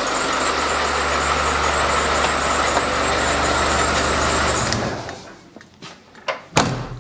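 Land Rover 300Tdi four-cylinder turbodiesel idling steadily on a freshly fitted cam belt, with no screeching from the timing cover. It is switched off a little under five seconds in and falls quiet, and a single sharp knock follows about a second and a half later.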